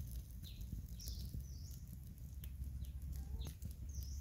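Small twig fire crackling under a pan of water at a rolling boil, over a steady low rumble. Several short, high bird chirps come through every half second or so.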